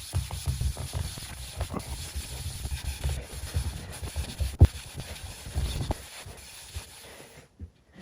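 Brushed-cotton cloth buffing hardened beeswax on a wooden sewing-machine cabinet: quick, irregular rubbing strokes, with one sharp knock about four and a half seconds in. The rubbing stops shortly before the end.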